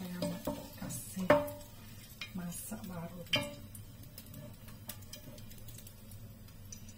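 Plastic slotted spatula scraping and clacking against a non-stick frying pan as fried salmon pieces are pushed around in hot oil. The sharpest clack comes about a second and a half in, with another a couple of seconds later.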